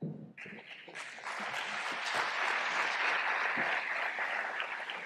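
Audience applauding: the clapping starts suddenly and swells over the first two seconds, then holds steady.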